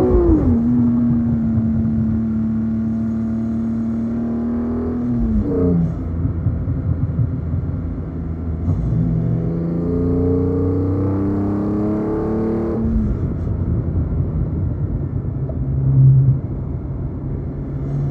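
BMW E46 M3's S54 inline-six through a Supersprint exhaust, driven hard on a winding road: the revs fall sharply at the start, hold steady for about five seconds, drop as the throttle comes off, then climb in a slow rising pull from about ten seconds in before falling again. A brief low boom comes about sixteen seconds in.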